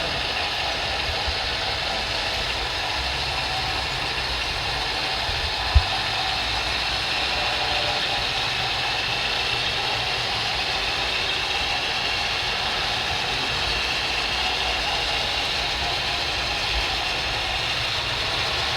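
Radio-controlled construction models running: a steady whir of small electric motors, gears and hydraulic pumps. There is a single sharp knock about six seconds in.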